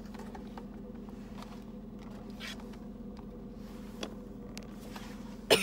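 Steady low hum inside a car's cabin, with faint rustling and a small click from handling a plastic phone case, then a few sharp knocks near the end as a hand bumps the recording phone.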